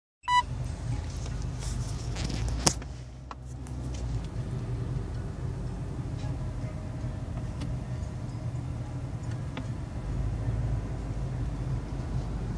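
Steady low rumble of a car's engine and tyres heard from inside the cabin while driving. A short beep at the very start and a single sharp click a little under three seconds in.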